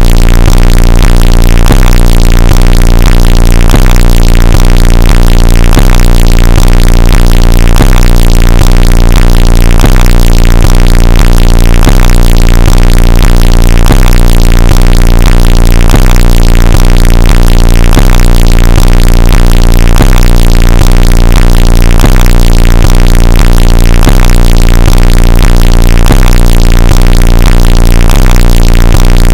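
Bass-boosted, heavily distorted electronic music, clipped at full volume ('ear rape'), with a booming low bass line and a pattern repeating about every two seconds.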